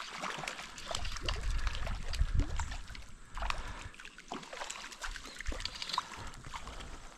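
A small hooked brown trout splashing and thrashing at the surface of a stream pool, heard as irregular splashes and ticks. A low rumble on the microphone between about one and three seconds in is the loudest part.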